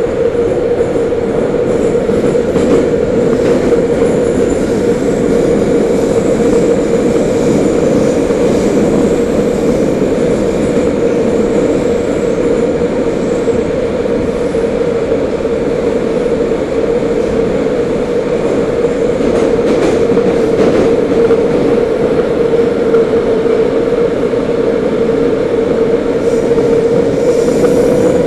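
Metro train running at steady speed, heard from inside the passenger car: a constant loud running noise with a steady hum and no change in pitch.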